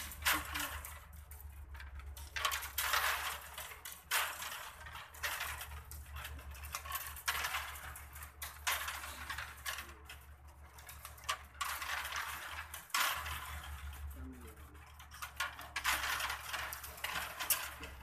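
Pliers working fence wire at the crossings: repeated short metallic scrapes and clinks as the wires are twisted together, coming every second or two.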